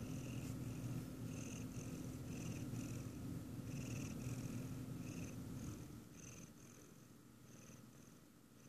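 Chocolate point Siamese cat purring close to the microphone, a steady low rumble that fades down about six seconds in.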